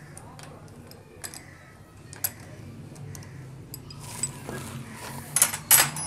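Metal clicks and taps of a T-handle socket wrench working bolts on a motorcycle engine while the carburettor is unbolted: a few scattered sharp ticks, then a louder cluster of metallic clinks near the end.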